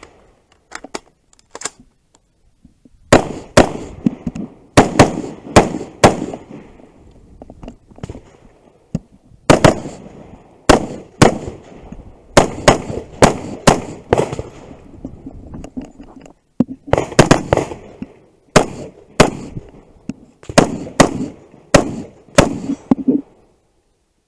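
Semi-automatic carbine fired at close range in quick strings of shots, about thirty in all, with short pauses between strings. A few faint clicks come before the first shot.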